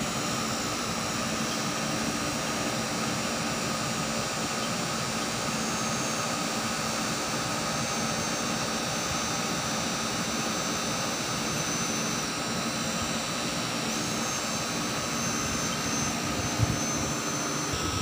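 Carrier window-type air conditioner running steadily, its compressor and fan giving an even hum and whoosh with a few held tones. The unit is running while it is charged with R22 refrigerant vapor through the manifold gauge.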